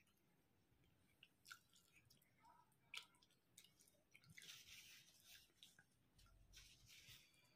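Faint close-miked chewing of rice and curry, with wet mouth clicks and squishes and a sharp click about three seconds in.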